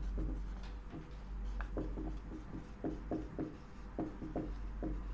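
Marker pen writing on a whiteboard: a string of short, irregular strokes as letters are drawn out one after another.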